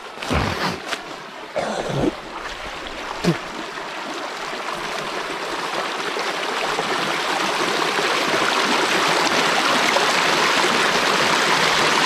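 Rushing, splashing water that grows steadily louder over several seconds, with a few knocks in the first three seconds.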